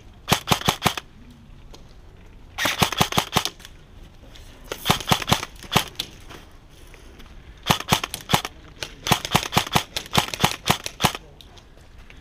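Airsoft rifle firing in five bursts of rapid shots, each a quick run of sharp cracks.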